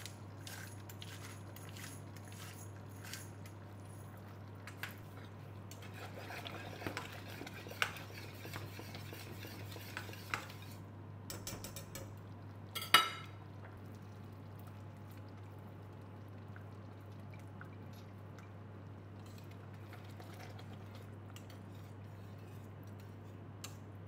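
A wire whisk stirring thick chicken rice porridge in an aluminium pot: light metal clicks and scrapes, with one sharp metal knock about halfway through. The second half is quieter.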